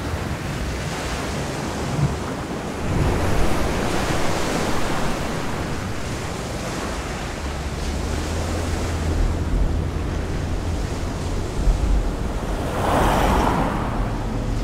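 Ocean surf breaking and washing over rocks, a continuous rush that swells in surges, the loudest near the end.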